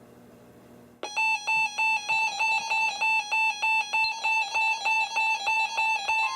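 A weather alert radio receiver's built-in alarm starts beeping about a second in, a loud, rapidly pulsing electronic tone: the receiver signalling that a new alert is coming in. Before it there is only a faint hum from the receiver.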